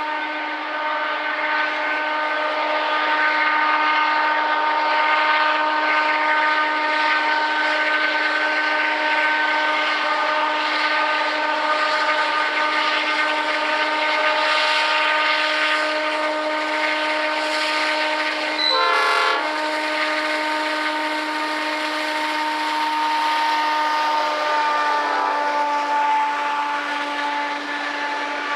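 Pacific National diesel locomotives working hard under load as they haul a heavy steel freight train up a grade, with a steady drone of several held tones. A brief, broken burst comes about two-thirds of the way through, and the tones drop slightly in pitch a little later as the locomotives pass. Loaded steel wagons roll by near the end.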